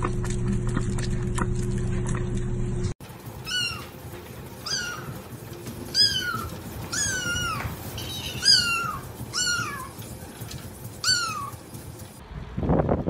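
A kitten meowing over and over: about seven short, high-pitched meows roughly a second apart, each rising and then falling in pitch. For the first three seconds, before the meows, there is only a steady low hum.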